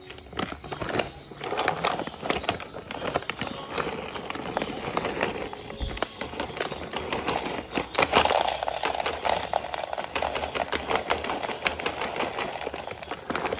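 Dry cat kibble poured from its bag into a plastic bowl: a dense, continuous rattle of pellets ticking against the bowl and each other, with the bag crinkling.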